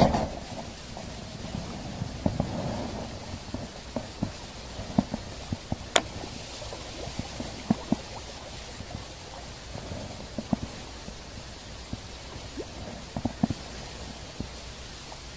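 A fishing rod and spinning reel being handled during a lure retrieve: one dull thump at the start, then scattered, irregular soft clicks and rubs over a faint hiss.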